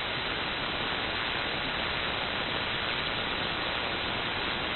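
Steady hiss of static and band noise from an Apache Labs ANAN 7000DLE MkII software-defined receiver on 75-meter lower sideband, with no station transmitting. The hiss cuts off sharply near 4 kHz at the edge of the receive filter. A faint steady whistle of a carrier sits underneath.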